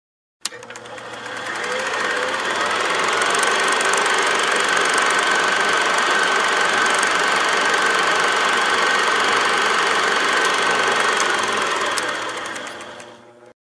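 A click, then a small machine's dense mechanical whir with a steady high whine, building up over about two seconds and running steadily, then fading near the end and cutting off.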